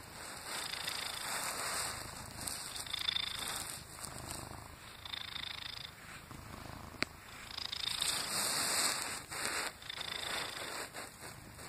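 Domestic cat purring close to the microphone, the purr swelling and fading every second or two. There is a single sharp click about seven seconds in.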